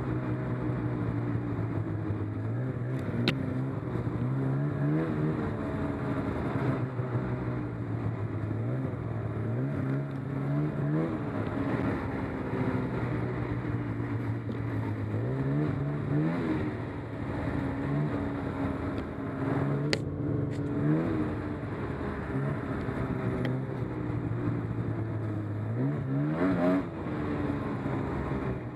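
Snowmobile engine running under way, its pitch rising steeply four times as the throttle is opened and then settling back. There are a couple of sharp clicks along the way.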